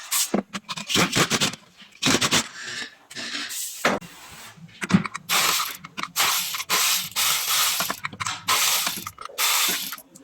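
Metal hand tool working on the car: a run of short rasping strokes, irregular at first, then coming about twice a second in the second half.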